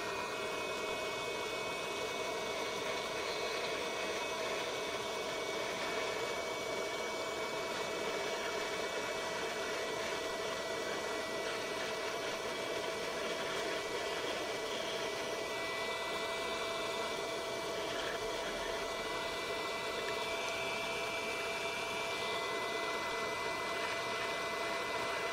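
Electric heat gun running, a steady rush of air with a whine from its fan motor, blowing hot air to shrink heat-shrink tubing.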